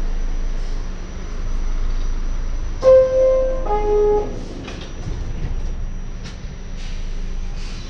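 Subway car's two-tone door chime, a higher tone followed by a lower one about three seconds in, over the steady rumble and hiss of the train car; a few short knocks follow.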